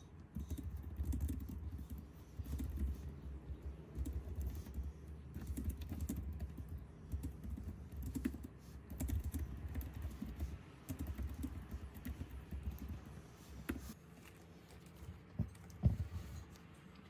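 Fast, continuous typing on a Logitech K380 keyboard, its round scissor-switch keys clicking quietly, for about thirteen seconds. A few separate knocks follow, the loudest near the end.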